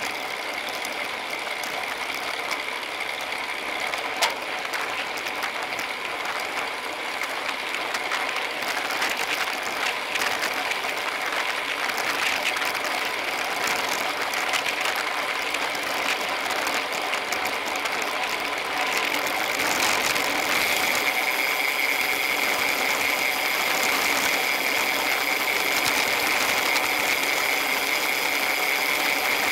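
Freehub ratchets of a bunch of road bikes buzzing as the riders coast, mixed with the steady hiss of tyres and wind, growing louder about two-thirds of the way through.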